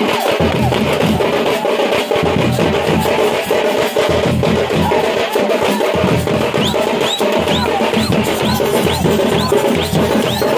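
Thappattai (parai) frame drums beaten with sticks in a fast, steady, loud rhythm by a street drum band. From about halfway in, a shrill sound that sweeps upward is repeated about twice a second over the drumming.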